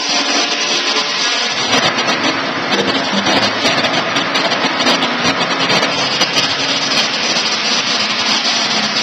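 Portable electric sawmill running and sawing timber: a loud, steady mechanical noise with a dense crackle, growing harsher about two seconds in.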